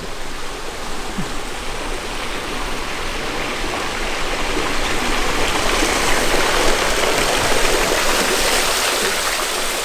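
Water rushing and pouring in a steady noise that grows a little louder toward the middle and eases near the end.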